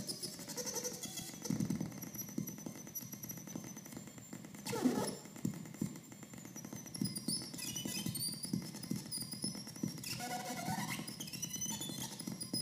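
Homemade two-in-one effects-pedal box making electronic noise: a fast stuttering buzz under high whistling tones that warble and glide in pitch as its knobs are turned, with a sharp burst about five seconds in.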